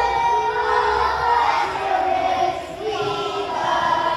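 A group of children singing together, holding notes that change pitch about once a second.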